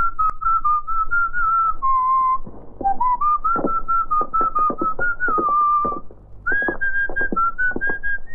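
A tune whistled as a single clear line, gliding between notes in short phrases over a rhythmic accompaniment of short struck or plucked notes. The whistling pauses briefly about six seconds in, then resumes a little higher.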